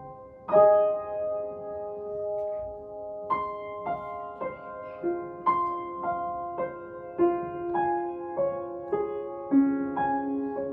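Grand piano playing a slow, chordal piece: a loud chord struck about half a second in and left to ring, then further chords changing roughly every second.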